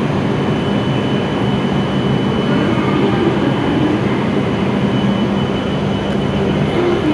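E7 series Shinkansen trainset standing at the platform, its onboard equipment giving a steady hum with a faint high whine.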